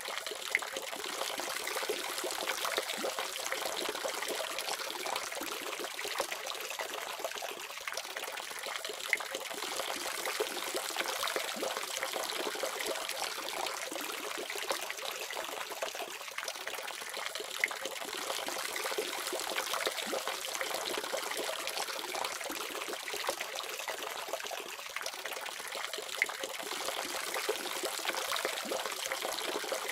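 Water running steadily from a faucet: a constant splashing hiss with an occasional sharper splash.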